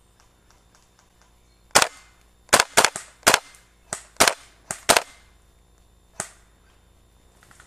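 Gas blowback airsoft UMP45 (VFC-Umarex) running on propane, firing about ten sharp single shots in quick, irregular succession, starting about two seconds in, with a last shot a little apart near the end.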